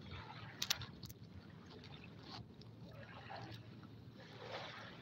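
Small waves lapping onto a pebble shore, coming in as soft washes about a second apart.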